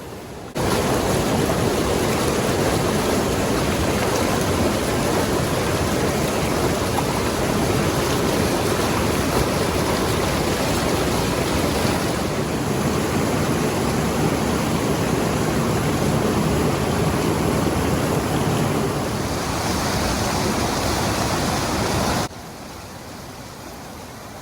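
Rushing water, a steady full rush like a stream or waterfall, cutting in abruptly about half a second in and cutting off just as abruptly near the end.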